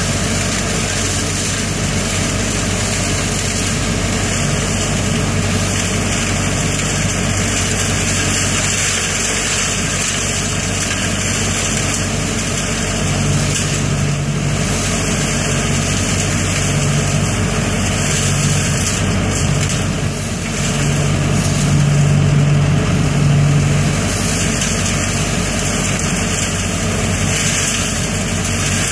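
ODB 650 trailer-mounted leaf vacuum running steadily under load, its engine drone mixed with the rush of air and leaves through the intake hose and blower. A deeper note comes and goes in the middle, and it gets a little louder about two-thirds of the way in.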